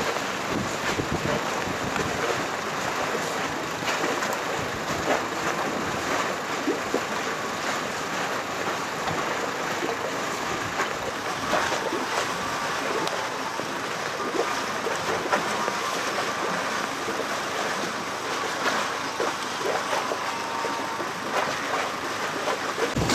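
Wind buffeting the microphone over choppy harbour water slapping against the hulls of moored boats, steady throughout with small crackles. A faint steady whine sounds through the middle stretch.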